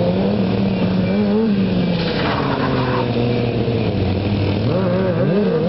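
A stunt motorcycle's engine revving up and down as it is ridden through tricks, with a short rush of hiss about two seconds in.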